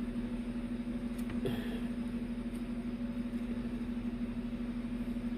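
A steady, even background hum holding one low pitch, with a faint click about one and a half seconds in.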